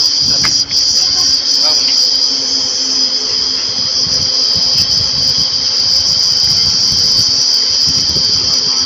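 Steady, loud, high-pitched chorus of insects, a continuous shrill buzz that does not let up, with some low rumbling noise underneath.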